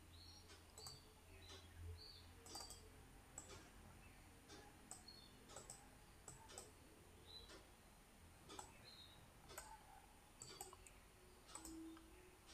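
Faint computer mouse clicks, scattered irregularly over quiet room tone.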